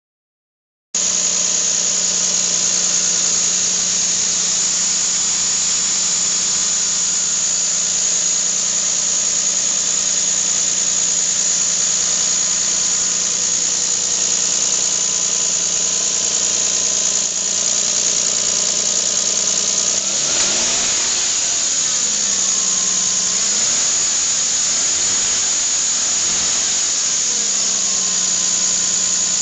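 Lexus IS300's 3.0-litre 2JZ-GE inline-six idling steadily on a cold start. The idle holds an even, smooth hum, and some wavering tones come in over the last third.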